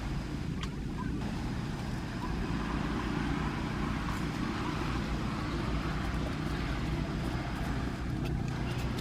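Steady low rumble of background noise, with a few faint clicks about a second in and near the end.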